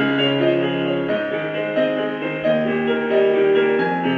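Background music: soft piano playing slow held chords.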